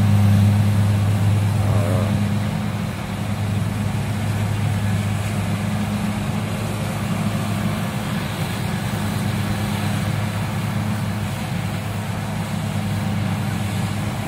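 Kubota DC-70 Plus rice combine harvester working through standing rice: its diesel engine and threshing gear running with a steady low drone, a little louder for the first two seconds.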